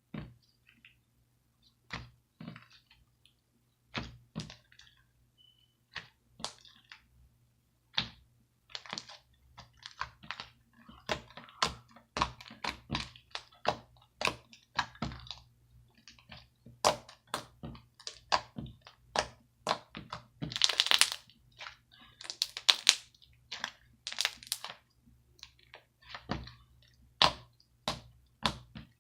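A long series of sharp pops and cracks, a few seconds apart at first, then coming quickly in irregular clusters, with a dense crackling run of pops near the two-thirds mark.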